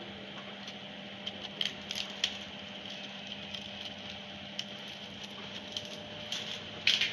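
Plastic packaging of a camera battery and memory card being handled and opened by hand: scattered small crackles and clicks, with a louder pair near the end, over a low steady hum.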